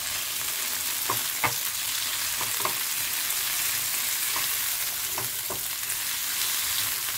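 Sliced shallots, garlic, onion, tomato and red chillies sizzling steadily in hot oil in a non-stick frying pan while being stir-fried with a spatula, which scrapes and taps against the pan several times.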